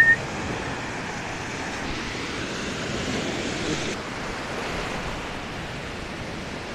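Small Lake Michigan waves washing on the beach, mixed with wind on the microphone, as a steady rushing. Right at the start, a brief high chirp rises and then holds for a moment, the loudest sound.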